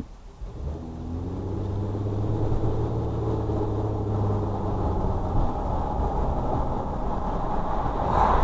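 A car's engine and road noise, heard from inside the cabin as the car pulls away and gathers speed. The engine note swells and slowly rises in pitch over the first few seconds, then settles into a steady road rumble.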